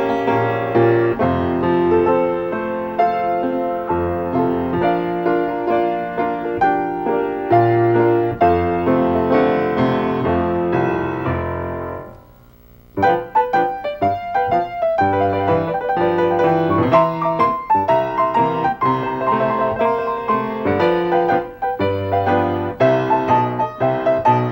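Solo piano music. About halfway through it fades away for about a second, then a new passage begins.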